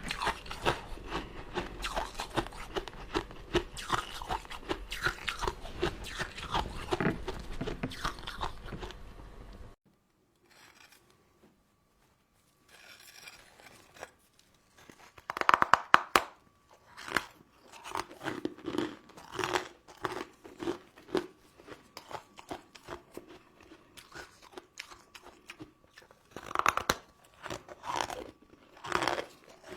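Close-miked chewing and crunching of sugar-coated crystal sweets and jelly, dense and continuous for about ten seconds, then cutting off abruptly. After a short near-silence come sparser bites, wet chewing and small clicks.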